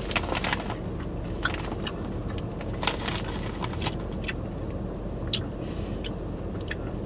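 A person chewing a mouthful of popcorn: scattered short, crisp crunches and clicks over a steady low hum.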